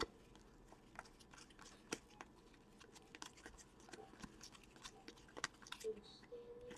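Faint, irregular clicks and rustles of a stack of hockey trading cards being flipped and shuffled through by hand.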